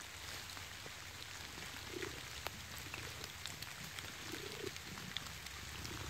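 Faint patter of water drops falling in a wet forest, scattered single drips, with a few soft low sounds about two seconds in and again near the end.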